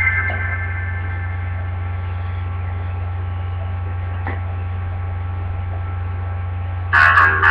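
Steady low electrical mains hum in a gap with no music, with one faint click about halfway through. Music with guitar starts again suddenly near the end.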